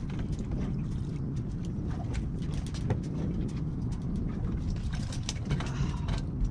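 Steady low wind rumble on the microphone, with scattered light knocks and clicks.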